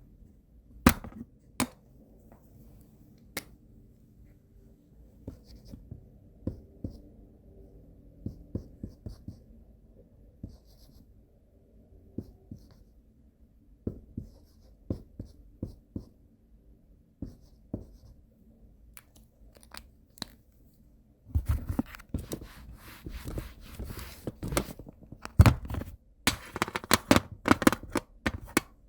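Dry-erase marker writing on a whiteboard: a few sharp taps near the start, light scattered strokes through the middle, then a dense, louder run of quick scratchy strokes over the last eight seconds or so.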